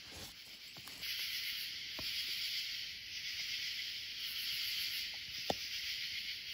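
Steady high-pitched chorus of night insects, with a few soft clicks and one sharper tick about five and a half seconds in.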